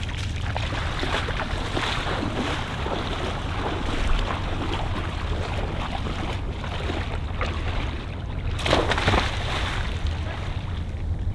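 Legs splashing through shallow, ice-cold seawater as a person wades in, with wind rumbling on the microphone. About nine seconds in comes a louder splash as he plunges in up to the shoulders.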